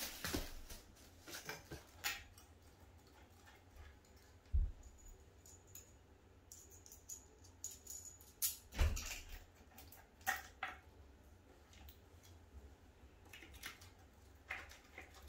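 Scattered handling noises of flat-pack furniture assembly: clicks, rustles and knocks as metal bolts and washers are fitted into a wooden chair frame, with dull thumps about four and a half and about nine seconds in.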